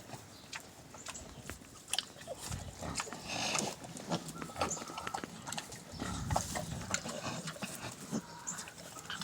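Pigs grunting in short, irregular grunts, with scattered clicks and knocks.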